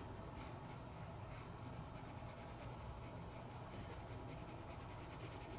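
Faint scratching of a 2B graphite pencil shading on sketchbook paper, in repeated short strokes.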